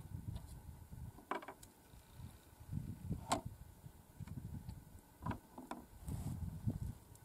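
Gusty wind rumbling on the microphone, with a few small clicks and knocks from gear being handled on a wooden table. The sharpest click comes about three seconds in.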